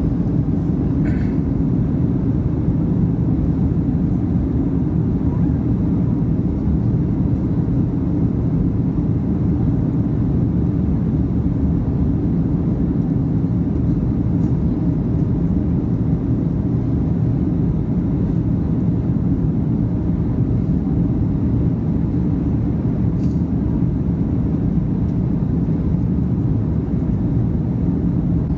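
Steady low rumble inside the cabin of a Boeing 737-700 on final approach: its CFM56-7B engines and airflow over the airframe, unchanging throughout.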